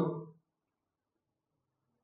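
The tail of a man's spoken word fading out, then near silence with only faint room tone.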